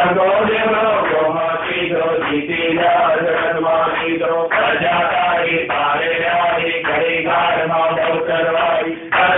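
A man chanting a Hindu devotional hymn in a steady sung melody, with music behind the voice. The chant breaks off briefly near the end.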